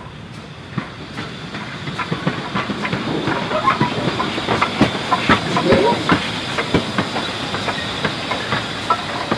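GWR Small Prairie 2-6-2 tank steam locomotive running light past, its wheels clicking and clanking over rail joints and pointwork, over a steady hiss of steam. It grows louder as the engine draws near, is loudest about halfway through and eases a little near the end.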